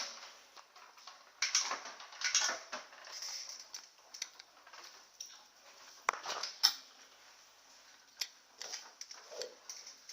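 Scattered light clicks and knocks, like small objects or metal parts being handled, with a few sharper knocks about one and a half, two and a half and six seconds in.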